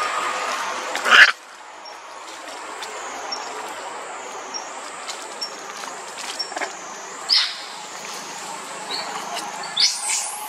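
Short high-pitched animal chirps recurring about once a second, with a few louder rising squeaks near the middle and the end, over a faint wavering high whine. About a second in there is a loud brief rising noise, and the steady background hum cuts off.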